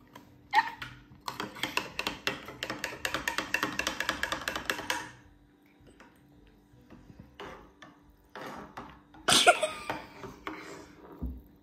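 A metal spoon stirs cocoa powder into milk in a ceramic mug, clinking and scraping rapidly against the sides for about four seconds. A louder short, rough burst comes about nine seconds in.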